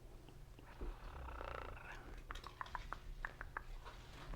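Quiet ASMR 'brain scratches': soft scratching, then a run of light clicks between about two and three and a half seconds in.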